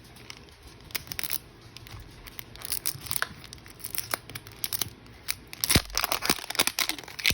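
Plastic wrapping of a Mini Brands toy capsule being torn and crinkled open by hand, a tight, hard-to-open wrapper. It gives irregular sharp crackles and rips that come thickest near the end.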